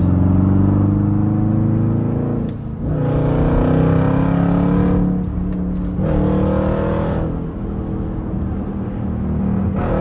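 Jeep's 5.7-litre Hemi V8 accelerating hard, heard from inside the cabin: the engine's pitch climbs, drops briefly, climbs again twice, then evens out for the last couple of seconds. The short drops are typical of automatic upshifts.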